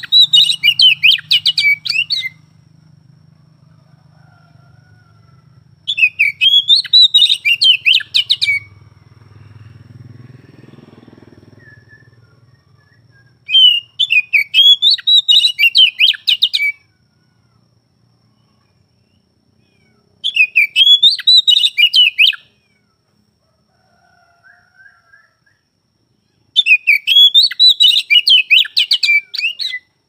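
Oriental magpie-robin singing in five loud bursts of rapid, varied notes. Each burst lasts two to three seconds, with pauses of about four seconds between them.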